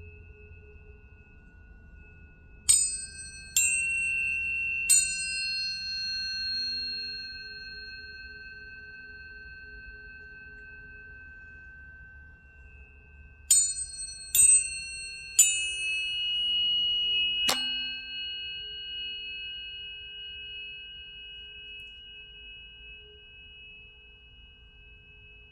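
Planetary tuning forks struck one after another, three times and then four times, each with a bright metallic clink. Pure tones ring on after the strikes and fade slowly over many seconds.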